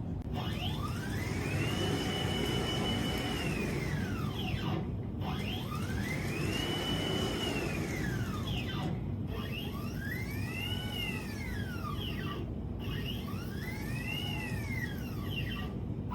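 CNC router stepper motors whining through four separate moves: each time the pitch rises as the axis speeds up, holds while it travels, then falls as it slows to a stop. The moves are separated by brief breaks.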